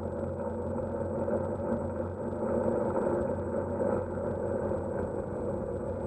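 An octocopter's eight electric motors and propellers spinning steadily at idle while the drone still sits on the ground, heard close up through its onboard camera, with a thin high whine over the hum.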